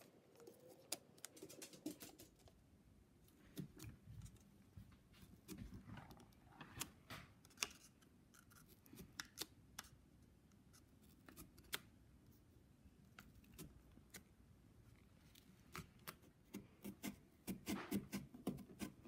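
Faint, irregular clicks of a pushpin being poked through a paper stencil into a pumpkin's rind to perforate the pattern's outline, with light paper handling. The clicks come faster near the end.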